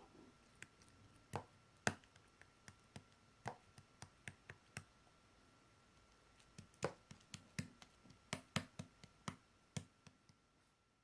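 Slime being pressed and poked by hand, giving sharp, irregular clicks and pops from trapped air, with a lull of a second or so in the middle.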